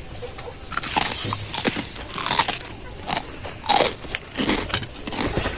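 A person eating: irregular crunchy bites and chewing of food.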